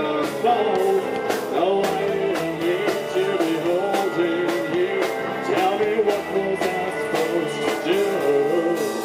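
Live country-rock band playing: electric guitar and a steady drum beat under a wavering lead melody.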